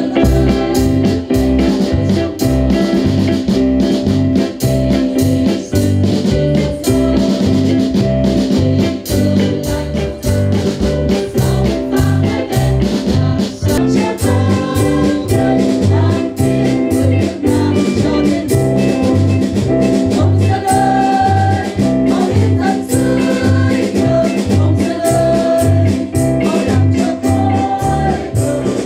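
A women's choir singing a national anthem over instrumental accompaniment with a steady bass beat.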